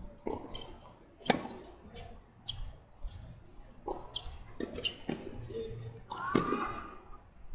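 Tennis ball being hit back and forth in a doubles rally: a string of sharp racket strikes and ball bounces, the loudest about a second in.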